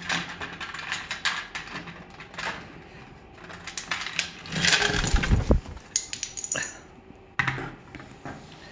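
Plastic Lego bricks clicking and clattering as a sulphur-crested cockatoo pries pieces off a Lego baseplate with its beak and drops them on a wooden table. Irregular sharp clicks throughout, with the loudest knocks about five seconds in.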